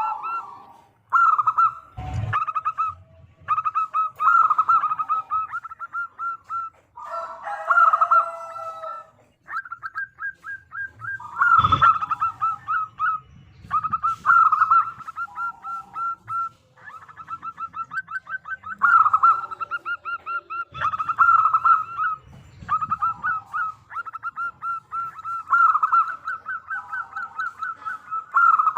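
Local zebra dove (perkutut) singing: repeated phrases of rapid staccato cooing notes, each lasting a few seconds with short breaks between, the kind of call used as a lure to draw other doves to answer. Two sharp knocks, about two seconds in and again near the middle.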